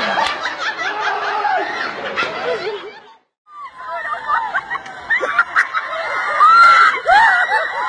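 People laughing, with bits of voices mixed in. The sound drops out briefly about three seconds in, then laughter and voices go on.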